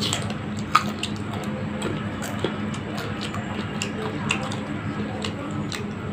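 Close-up chewing of crisp raw green mango: irregular wet crunches and mouth clicks, the loudest a little under a second in, over a steady low hum.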